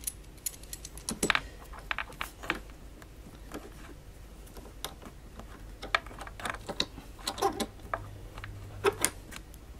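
Small irregular metallic clicks and rattles from a steel desk clamp's screw and its sliding T-bar handle being turned by hand to tighten the clamp.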